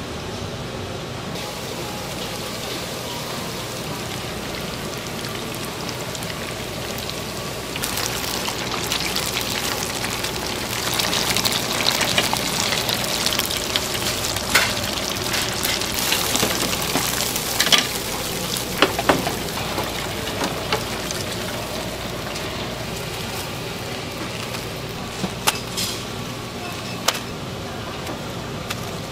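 Food frying: a steady sizzle that grows louder from about eight seconds in until about twenty, with a few sharp clicks and taps.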